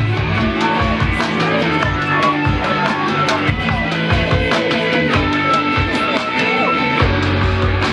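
Live band music without singing. The sustained bass drops out, leaving separate low hits, and comes back in about seven seconds in.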